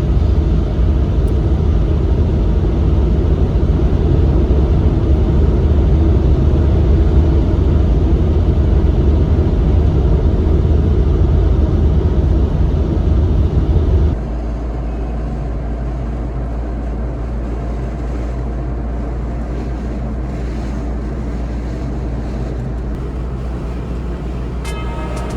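Car on the move: steady engine and road rumble, dropping suddenly to a quieter steady rumble about fourteen seconds in.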